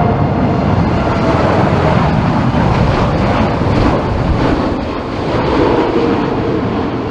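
Boeing 747 jet engines rumbling loudly, with a faint steady whine in the noise and strong gusty wind buffeting the microphone.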